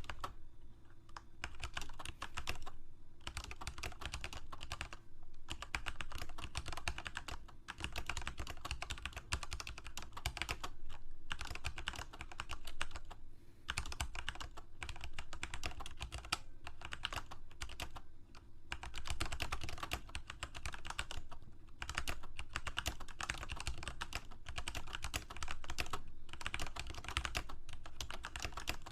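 Computer keyboard being typed on: fast, dense runs of key clicks, broken by brief pauses of under a second.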